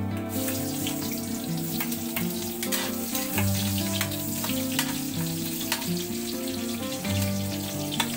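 Chicken pieces sizzling as they fry in hot oil in a wok, with a metal ladle clicking and scraping against the pan as they are stirred. Background music with changing notes plays throughout.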